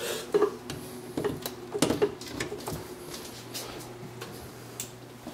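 Scattered clicks and knocks of hands handling a PC case and plugging in its power cable, mostly in the first three seconds, then quieter. A steady low hum runs underneath.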